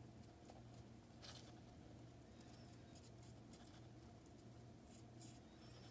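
Near silence: a steady low hum, with a few faint, brief scratches from the clear plastic feeding cup as a bearded dragon's head works inside it after the insects, about a second in, halfway through and near the end.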